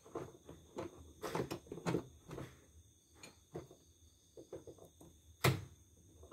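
Soft, irregular knocks and clicks from a CNY portable embroidery machine being tried, with one sharp click about five and a half seconds in; its main motor fails to turn.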